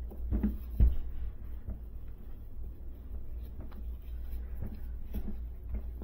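A rope being handled and knotted around a tool bag's handle: rustling and scraping with a few knocks, the loudest about a second in, over a steady low rumble.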